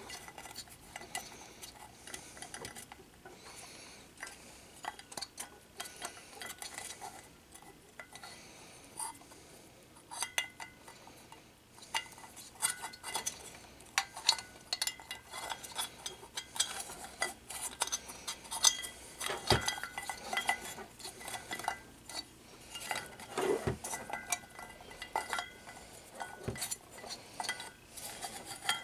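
Hard plastic parts of a dome camera's back box and wall bracket being handled and fitted together, with a cable fed through: scattered small clicks, taps and clinks, and a couple of louder knocks past the middle.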